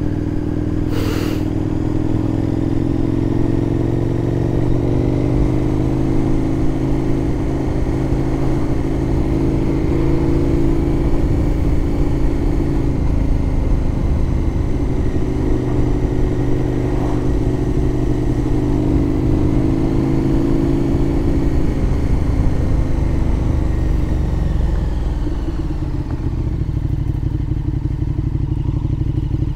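KTM 1290 Super Duke R's V-twin engine pulling along at road speed in second and third gear. The note rises and holds through gentle accelerations, then falls away as the bike slows near the end and settles to a lower steady note.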